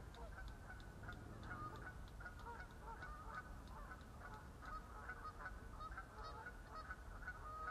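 A flock of waterbirds on the pond calling steadily, many short overlapping calls, goose-like in character, over a low steady rumble.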